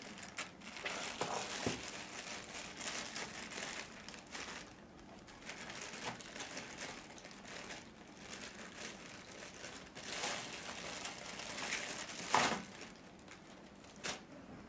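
Plastic carrier bag crinkling and rustling in uneven bursts as a hand rummages through it, with a sharper crackle a little past halfway.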